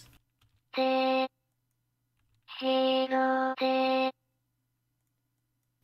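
UTAU singing-synthesizer voice playing back short sung notes, each held on one flat pitch: a single note about a second in, then three notes in a row from about two and a half seconds in.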